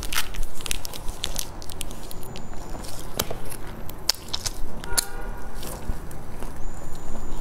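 Close-miked biting and chewing of a crisp, sesame-topped pan-fried flatbread stuffed with greens, with hands tearing the flaky crust. Many irregular sharp crackles run through it, with wet chewing in the mouth.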